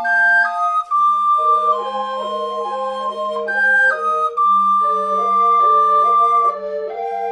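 Flute ensemble playing a slow piece in several parts: a held melody line on top, moving inner parts beneath it, and a sustained low note.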